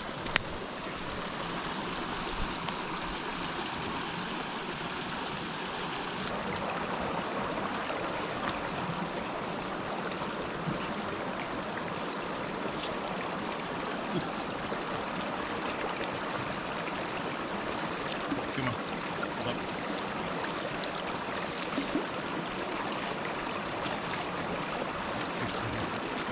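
Steady rush of flowing water, like a stream, with a few faint clicks and knocks over it.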